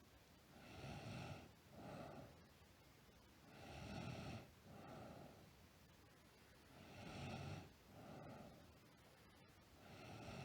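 A sleeping girl snoring faintly in a steady rhythm, about one breath every three seconds. Each snore is a longer, louder sound followed at once by a shorter, softer one.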